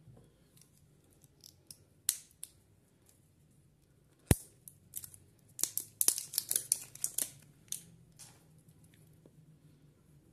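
Small clicks and taps of AAA batteries being handled and pushed into a flashlight's battery holder: a sharp click about four seconds in, then a quick run of clicks over the next two seconds.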